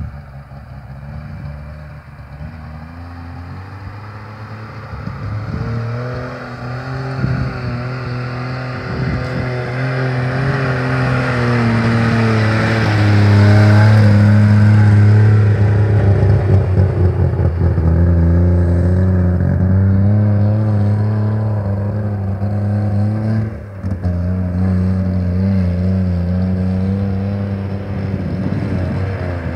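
DKW Munga's three-cylinder two-stroke engine running as the jeep drives over loose ground, growing louder as it approaches and passes close by about halfway through, with tyre noise at the loudest point, then carrying on at a steadier level.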